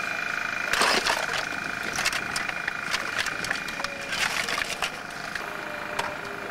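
Shovels scraping and clanking as aircraft wreckage is dug out of wet mud and handled, loudest about a second in and again around four seconds in, over a steady whine from an excavator running.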